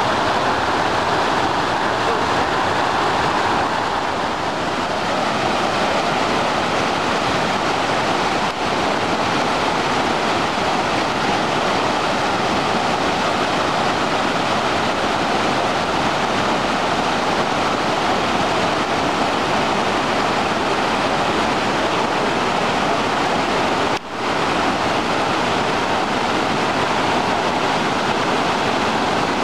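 Taughannock Creek in flash flood: muddy whitewater rushing through rapids in a loud, steady rush, with two brief dips about 8 and 24 seconds in.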